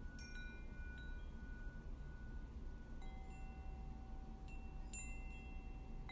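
Sparse chime tones: a few high notes struck at irregular moments and left ringing, over a low steady hum, as ambient background music.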